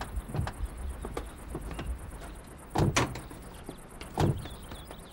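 A few heavy door thumps, the loudest two close together about three seconds in and another a little after four seconds.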